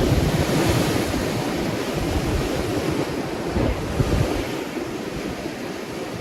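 Ocean surf: waves breaking and washing onto the shore in a continuous rush, with wind gusting against the microphone.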